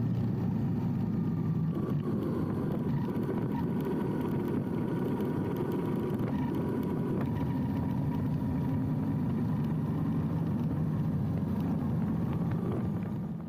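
Yamaha Bolt's air-cooled V-twin engine running steadily as the motorcycle cruises along a paved road; the sound fades out right at the end.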